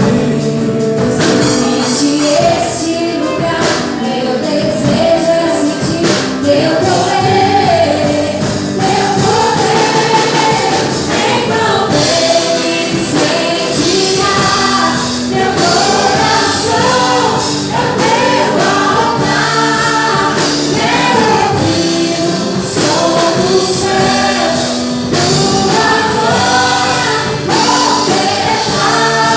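Gospel worship song sung by a group of voices over steady instrumental accompaniment.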